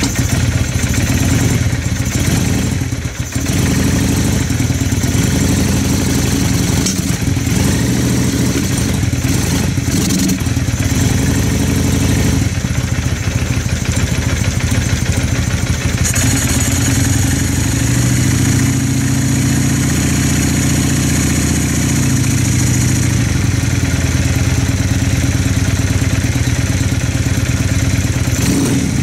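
Motorcycle engine idling steadily, with a brief dip about three seconds in.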